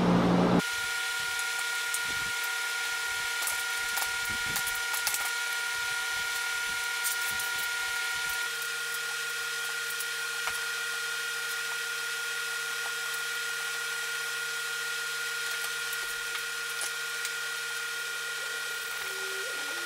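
A steady hum of several held tones over a faint hiss, with scattered light clicks and taps; some of the tones drop out about eight seconds in.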